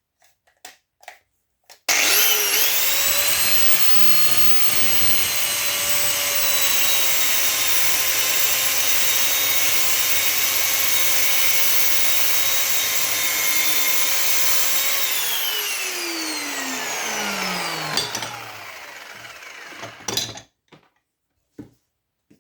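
An electric cutting tool with a spinning blade is switched on about two seconds in and runs at a steady high whine while cutting through brass and copper scrap. About three-quarters of the way through it is switched off and the whine falls in pitch as the blade winds down over a few seconds. A few light handling clicks come before it starts.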